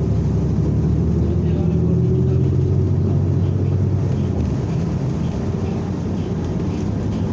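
New Flyer XN40 natural-gas city bus under way, heard from inside the cabin: a steady engine drone with road noise, the engine note dropping back about halfway through.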